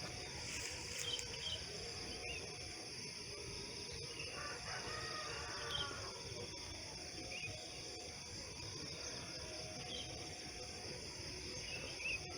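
Rural outdoor ambience: insects droning steadily, with short bird chirps every second or two and a rooster crowing once around the middle.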